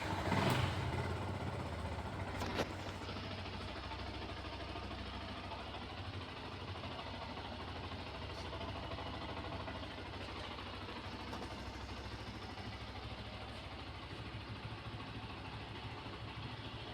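Yamaha R15's single-cylinder four-stroke engine just started on the electric starter, a little louder for the first second or so, then idling steadily. A short click about two and a half seconds in.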